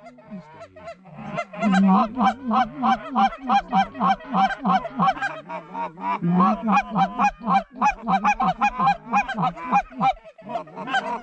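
Canada goose calls blown by hunters to work an approaching flock: rapid clucks and honks, about four a second, over deeper moaning notes.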